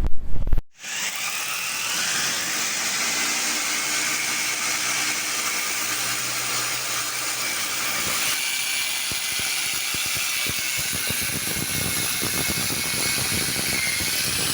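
Paint being sprayed: a steady hiss that starts abruptly about a second in and stops abruptly near the end, with a crackle of small ticks in its second half.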